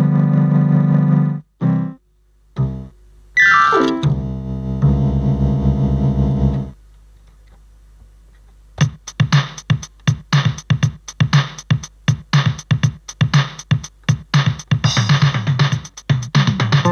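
MK-2117 electronic keyboard playing: held chords, a quick rising run of notes about three and a half seconds in, then after a short lull, fast repeated short notes.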